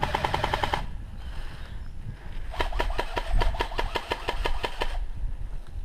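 Airsoft electric gun (AEG) firing on full auto: a short burst ending just under a second in, then a longer burst of about two and a half seconds, each a fast run of clicks over the gearbox motor's whine.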